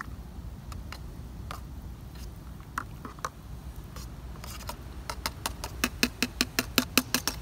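Coffee being stirred in a metal camp pot, the utensil clinking against the pot's side. A few scattered clinks give way, past the middle, to fast even clinking about five times a second that grows louder, then stops just before the end.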